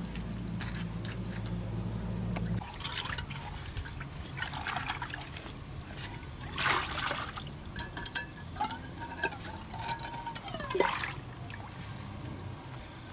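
Water splashing and trickling as a small cooking pot is dipped into a shallow ditch and filled, with a few clinks of the pot.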